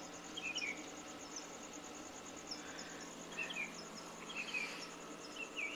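Crickets chirping steadily, with repeated short chirping calls from another animal that the speaker calls a "screecher creature" up the hill.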